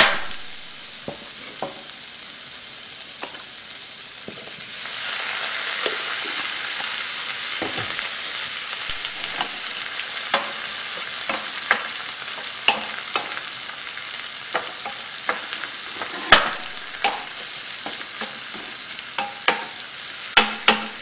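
Vegetables frying in butter in a frying pan, sizzling, while a wooden spatula stirs them with frequent clicks and scrapes against the pan. The sizzle gets louder about five seconds in.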